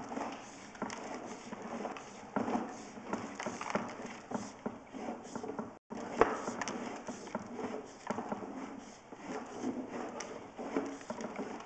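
Sewer inspection camera head and push rod being fed along a 4-inch ABS sewer line, giving irregular clicking, knocking and scraping as the head bumps along the pipe. The sound cuts out briefly about six seconds in.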